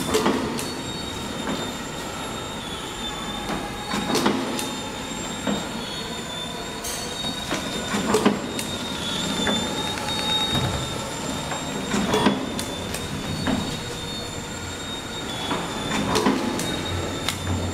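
Three-lane sachet packaging machine running: a steady high whine with a sharp clack about every four seconds and lighter clicks in between.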